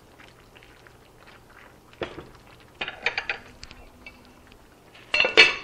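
Kitchenware clinking: a few light knocks as a spoon is laid on a spoon rest, then louder, ringing clinks near the end as a glass lid meets a stoneware pot.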